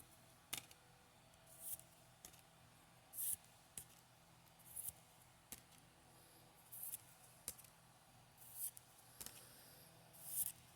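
Pokémon trading cards being slid one at a time off a hand-held stack, a faint swish about once a second, with a few light clicks of card edges between them.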